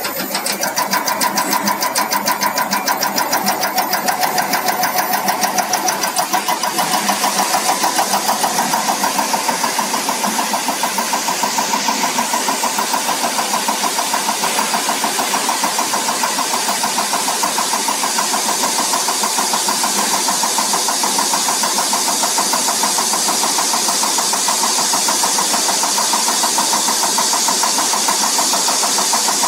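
Diesel injector test bench's cambox driving an electronic unit injector at 400 rpm, with a fast, even ticking of pulses over a steady mechanical running sound and a hiss.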